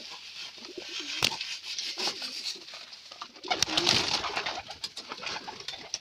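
Domestic pigeons cooing, with a sharp click about a second in and a short, louder rustling burst about three and a half seconds in.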